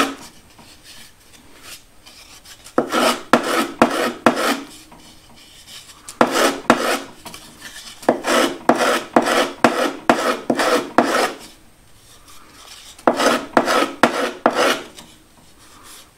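Edge of a thin luan plywood plate rubbed back and forth by hand on a sheet of 60-grit sandpaper, knocking down its sharp edges. It comes in three runs of quick sanding strokes, each run a few seconds long, with short pauses between.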